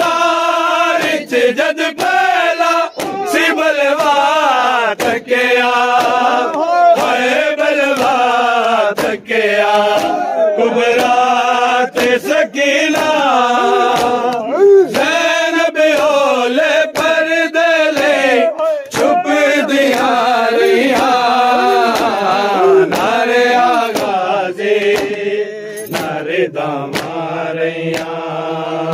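Men's voices chanting a noha, a Shia lament, in long held lines, with sharp hand slaps of chest-beating (matam) keeping a beat about once or twice a second.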